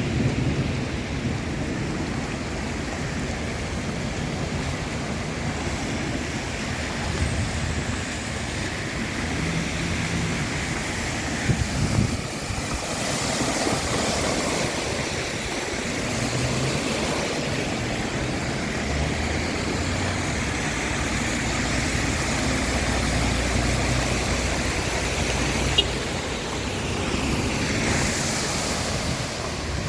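Rainstorm: a steady wash of rushing water and rain, with wind buffeting the microphone and a low rumble underneath.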